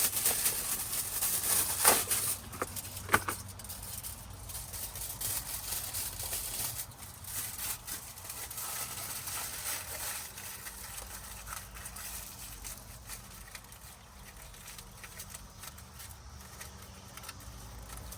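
Thin aluminium foil crinkling and rustling as it is pressed and wrapped around engine parts, with two sharp clicks about two and three seconds in; louder at first, then fainter and irregular.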